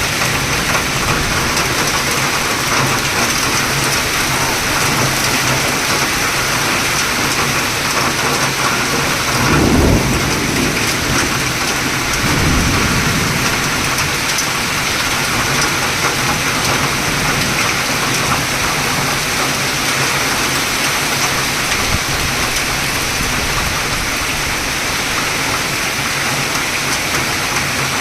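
Heavy rain pouring steadily, a dense even hiss of rain hitting surfaces. Two low rumbles of thunder swell up about ten seconds in and again about twelve seconds in.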